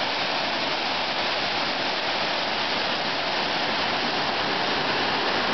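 Waterfall pouring over wide rock ledges into a rocky pool: a steady, unbroken rush of falling water.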